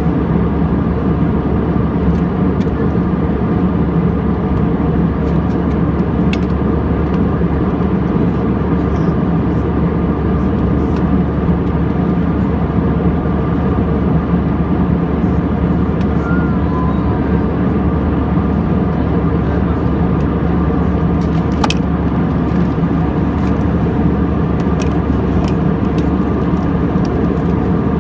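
Steady drone of an airliner cabin in flight, engine and airflow noise with a low hum underneath. A few faint clicks sound over it, the clearest about two-thirds of the way in.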